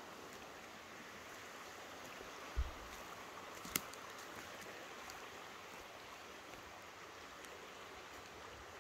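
Faint steady rush of a small forest creek, with a low bump about two and a half seconds in and a sharp click about a second later.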